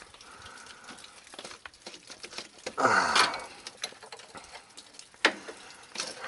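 Small scattered metal clicks and ticks of a 5/8 wrench working a tight power-steering (hydro boost) line fitting loose a little at a time. A louder scraping noise comes about three seconds in, and a sharp click shortly before the end.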